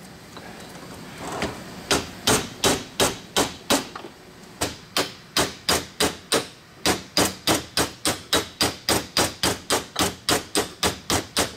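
Hammer tapping a Browning taper-fit blower pulley off an electric motor shaft: a steady run of sharp metallic taps, about two to three a second, with a short pause about four seconds in. The taps drive the pulley off its tapered bushing after the bushing has been jacked loose.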